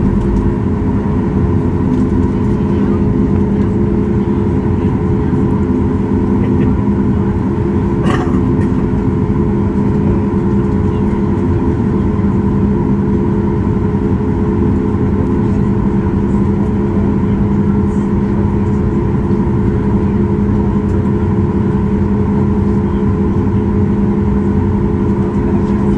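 Steady drone inside the cabin of a Boeing 737 MAX 8 standing at the gate, a low rumble with several steady hums from the aircraft's air and power systems. A single short click about eight seconds in.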